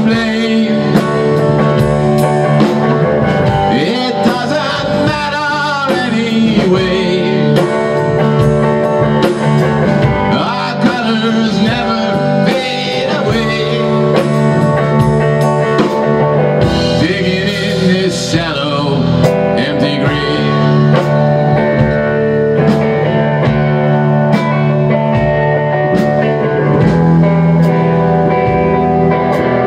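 Live rock band playing: two electric guitars over a Tama drum kit with cymbals, with a lead line that wavers and bends in pitch several times.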